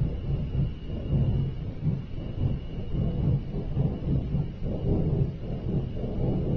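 A deep, wavering rumble that swells and ebbs unevenly, with a faint steady high tone above it: one of the unexplained 'strange sounds' heard from the sky.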